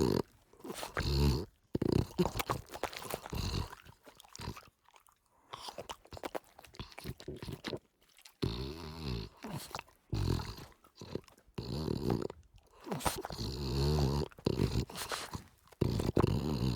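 Bulldog purring: a low, rattly rumble in its breath, coming in irregular bursts of a second or two with short pauses between.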